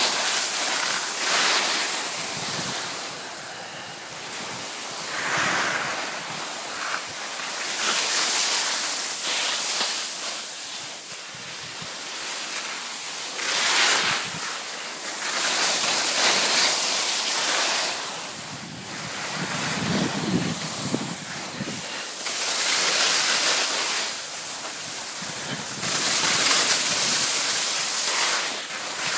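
Wind buffeting the microphone of a moving skier, with the hiss of skis carving on snow that swells and fades every few seconds as the skier turns.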